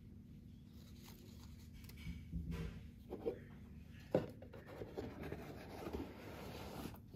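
Rubbing and scraping of a Rolex watch box and its cardboard outer sleeve being handled, starting about two seconds in, with one sharp knock about four seconds in.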